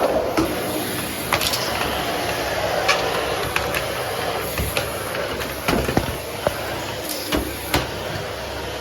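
Miele C1 canister vacuum cleaner running steadily during a cleaning test, with scattered clicks and knocks over the rushing noise.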